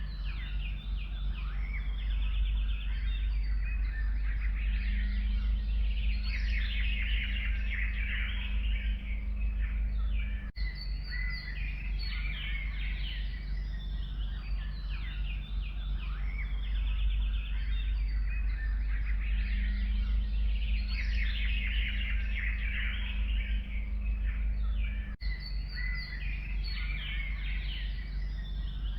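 A chorus of forest songbirds chirping and trilling over a steady low rumble. The recording repeats as a loop about every fifteen seconds, with a brief dropout at each seam.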